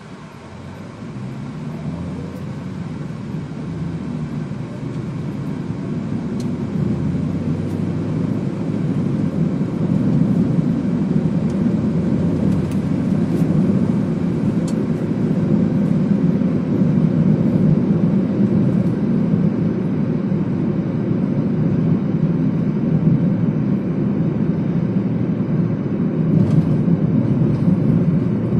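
Car engine and road noise heard from inside the cabin. The pitch and loudness rise over the first ten seconds or so as the car gathers speed, then the noise holds steady.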